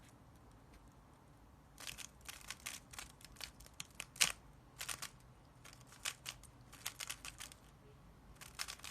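Irregular flurries of short, sharp plastic clicks and clacks, starting about two seconds in after a quiet moment.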